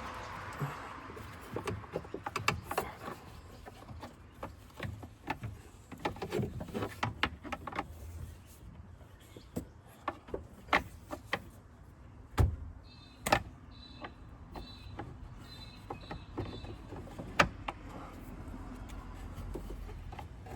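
Plastic airbox lid and Lid Lock clip being handled and pushed into place: irregular clicks, knocks and scrapes of hard plastic, with a short run of squeaking about two-thirds of the way through.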